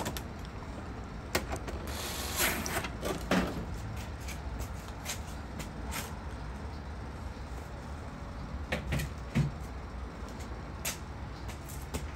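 Scattered light clicks and knocks of hand tools and metal parts being handled on a dryer control panel, over a low steady hum.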